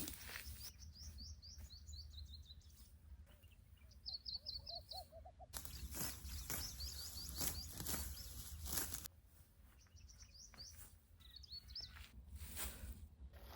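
Small bird singing in several quick runs of short, high, falling chirps, with scattered rustles and a steady low rumble of outdoor background noise.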